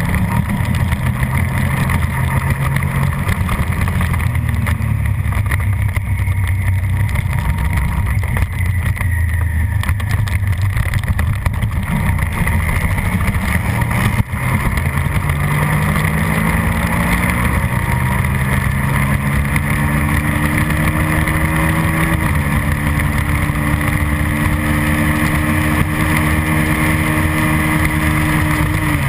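Suzuki SV650 racing motorcycle's V-twin engine at race pace, heard from on the bike. The engine note holds and wavers for the first half, breaks briefly about halfway, then climbs steadily in pitch under hard acceleration, steps once more and holds high, starting to fall right at the end.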